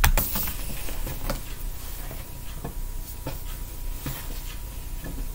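A single sharp knock at the start, then a quiet room with a low hiss and a few soft, scattered taps on a table.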